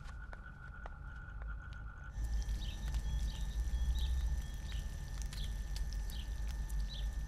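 Background ambience changing about two seconds in: a low hum with a few faint clicks gives way to birds chirping in short, repeated calls over a steady hum.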